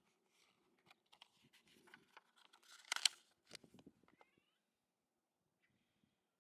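Rustling and clicks with a sharp knock about three seconds in, then a short animal call that bends in pitch just after four seconds.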